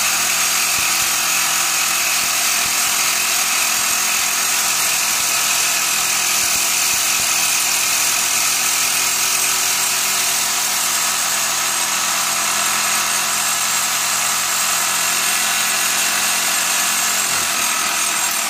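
Reciprocating saw (Sawzall) with a dull blade, running steadily as it cuts through a rusted sway bar end link bolt and spacer; it stops right at the end.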